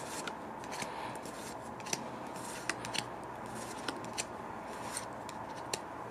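Trading cards being handled and flipped through, with scattered light, sharp clicks of card edges over a faint steady hiss.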